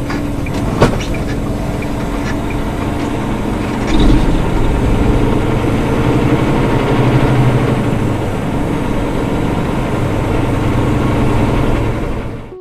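Semi truck's diesel engine pulling away and accelerating, heard inside the cab. There is one sharp click about a second in, and the engine gets louder about four seconds in.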